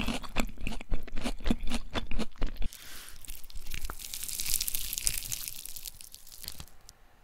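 Crisp rice-flour batter shell of a fried banana fritter crackling in a rapid run of sharp crunches for about two and a half seconds. Then comes a softer, hissy tearing rustle as the fritter is pulled apart by hand, fading away near the end.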